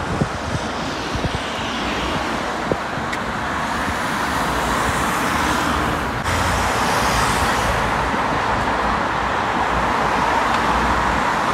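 Steady road traffic from cars driving along a busy main road below a footbridge: a continuous wash of tyre and engine noise. It steps up in level about halfway through.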